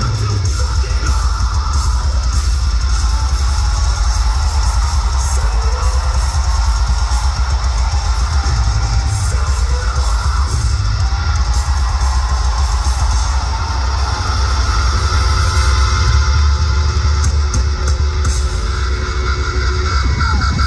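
Metal band playing live through a venue PA: heavily distorted electric guitars and drums over a loud, deep low end. In the second half, held ringing guitar notes sit over the din.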